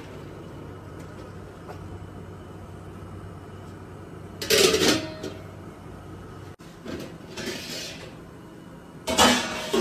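Stainless steel lid of a large stockpot clanking against the pot twice, about four and a half seconds in and again near the end, each a short metallic clatter with a brief ring, over a steady low hum.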